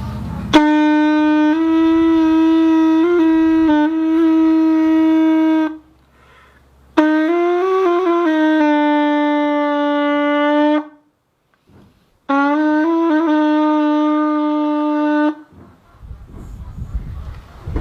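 Otomí-style folk flute with no reed or mouthpiece, sounded by buzzing the lips as on a conch trumpet. It plays three long held notes at the same low pitch, each with a buzzing, overtone-rich tone and slight wobbles, with short breaks between them.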